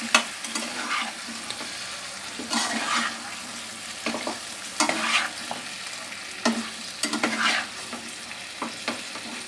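Spatula scraping and stirring chicken pieces through coriander-leaf paste in a frying pan, a scrape about every second, over a steady sizzle of frying: the chicken is being mixed into the fried masala.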